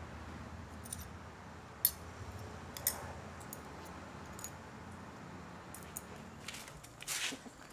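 Quiet room tone with a steady low hum, broken by a few light clicks and taps: single ones about one, two and three seconds in, and a small cluster near the end.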